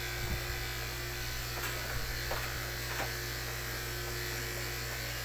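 Electric pet grooming clippers buzzing steadily as they shave a dog's matted coat, with a few faint clicks.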